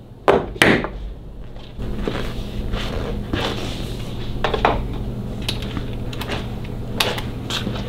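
Metal hand tools clinking and clattering at a workbench: two sharp clicks in the first second, then scattered single clinks over a steady low hum.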